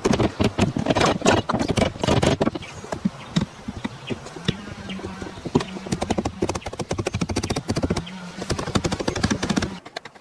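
Rapid, irregular knocking and tapping of hand woodworking on wood, loudest in the first couple of seconds, with a faint steady hum under the later part; it cuts off abruptly near the end.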